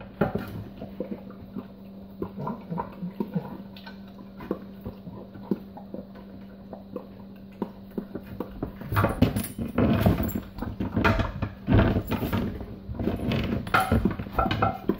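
A dog licking dishes in a stainless-steel kitchen sink: irregular wet licking with plates and dishes clinking and knocking against each other and the sink. The sounds are light at first and grow busier and louder about nine seconds in.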